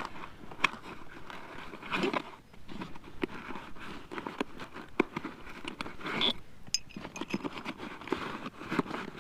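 Hands rummaging in a fabric tool bag pocket: rustling with scattered sharp clicks and knocks of metal hand tools being worked out of the pocket.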